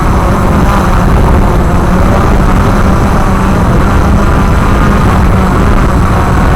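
Walkera QR X350 Pro quadcopter's electric motors and propellers running steadily in flight, a constant low hum under loud rushing noise.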